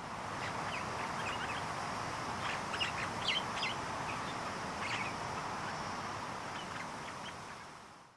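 Birds chirping: many short, high calls scattered over a steady background of outdoor noise. The sound fades in at the start and fades out near the end.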